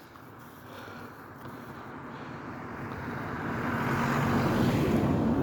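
A car approaching along a lane, its engine and tyre noise rising steadily and loudest at the end as it comes alongside.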